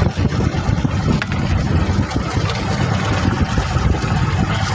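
A small fishing boat's engine running, with a dense, unsteady low rumble of wind and water noise over it.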